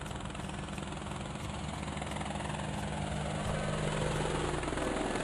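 Helicopter sound effect: steady rotor and engine noise that grows gently louder as the helicopter comes in.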